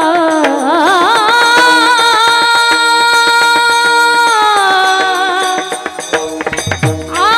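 A singer in a Warkari devotional Bhairavi holds long, wavering, ornamented notes over steady rhythmic percussion. Near the end the voice pauses, low drum strokes sound, and a new held note begins.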